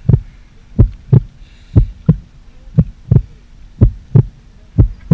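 Heartbeat sound effect: a steady lub-dub double thump, about one pair a second, five times over.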